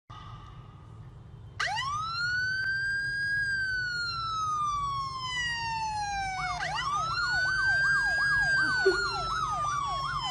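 Emergency vehicle siren: a wail that rises and then slowly falls in pitch, followed by a second wail overlapped by a fast up-and-down yelp of about three cycles a second.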